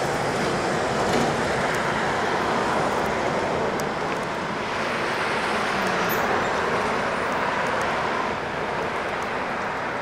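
Steady road traffic noise, an even rushing sound of vehicles running on the street with no breaks.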